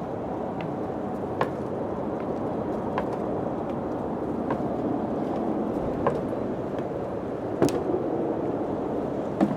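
Steady wind in a spooky ambience mix, with a slow series of sharp knocks about every one and a half seconds. The two loudest knocks come near the end.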